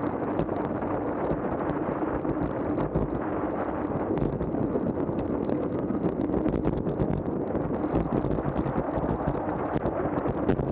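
Wind buffeting the microphone of a camera on a fast-descending kickbike, over the steady rolling noise of its tyres on asphalt, with scattered faint clicks from the road.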